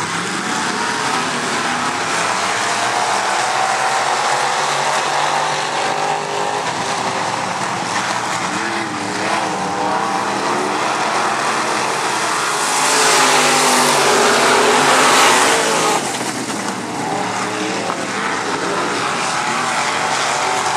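A pack of dirt-track modified race cars running under power, several engines heard at once. The sound swells louder for about three seconds past the middle, then settles back.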